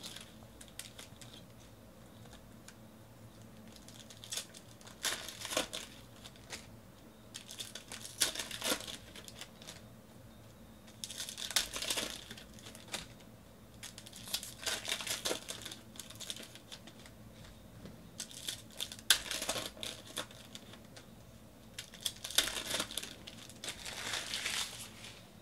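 Trading-card pack wrappers crinkling and tearing as hands open packs of football cards. It comes in repeated bursts of a second or two with quiet gaps between, and a few sharp clicks.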